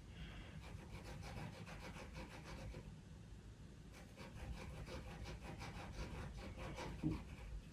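Caran d'Ache pastel pencil making quick short strokes on pastel paper, several a second, easing off briefly around the middle. A light knock comes near the end.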